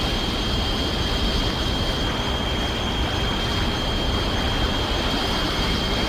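Steady rushing noise with a constant high whistling tone, a recreated monster-film sound effect.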